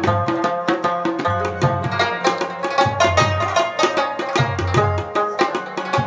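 Instrumental music: a rabab plucking a song melody over a steady, busy drum rhythm.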